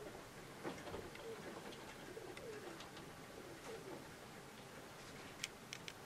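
Feral pigeon cooing faintly: several low coos, each falling in pitch. A few sharp taps sound near the end.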